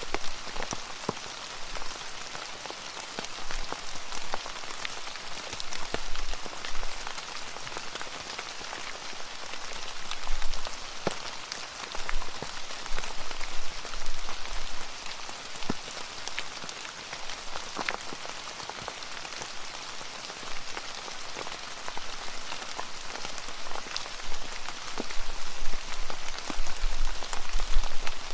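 Wood fire burning in a fireplace: a steady crackle with frequent sharp pops and snaps, and a low rumble that swells now and then, more toward the end.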